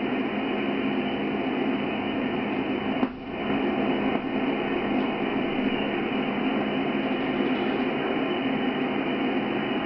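Steady hiss of band noise from a transceiver's speaker, receiving upper sideband on 27.620 MHz with no voice on the frequency. The hiss is cut off sharply above about 3 kHz by the receive filter, with a brief dip about three seconds in.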